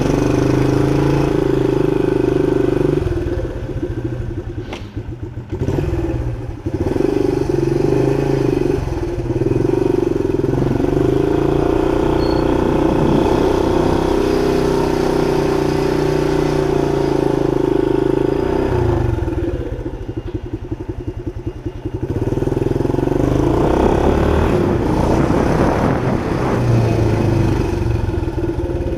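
1976 Honda XL175's single-cylinder four-stroke engine running as the bike is ridden, dropping back twice, about four seconds in and again about twenty seconds in, then picking back up.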